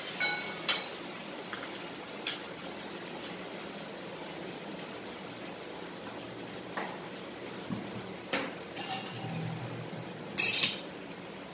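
A metal spatula clinks sharply twice against a steel kadhai of dalia frying in ghee, with a brief ring. Scattered knocks of steel utensils follow, and near the end comes a loud clatter of steel vessels being handled.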